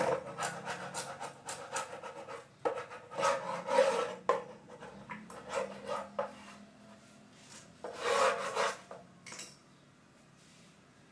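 A chisel scraping and prying peeling teak-veneer plywood off a wooden cabinet door, in a series of short, irregular scrapes.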